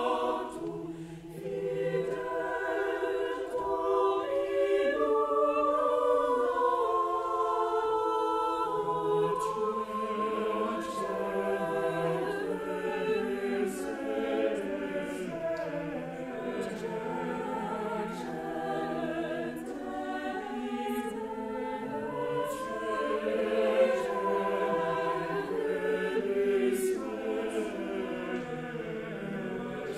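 Large mixed choir of men's and women's voices singing in several-part harmony, holding sustained chords that move together, with a brief dip in loudness about a second in.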